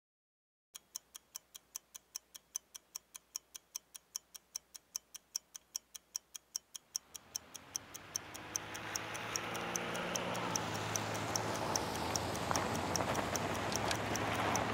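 Regular, evenly spaced ticking, about three ticks a second, starting just under a second in. From about seven seconds in, a rushing noise with a low hum swells up beneath it and grows steadily louder.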